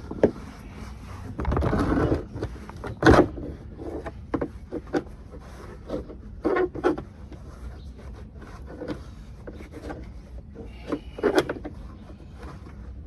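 Irregular knocks, clunks and rubbing of things being handled during hands-on work, with a louder scraping rush about 1.5 seconds in and sharper knocks about 3, 6.5 and 11 seconds in.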